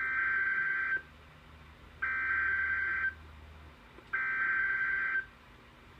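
NOAA Weather Radio EAS/SAME digital header sent three times: three identical screeching data-tone bursts about a second long, each a second apart. These are the coded header that opens a new alert.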